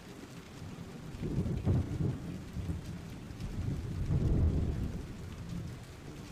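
Rain falling, with two rolling rumbles of thunder: one swells about a second in and a second follows near the middle.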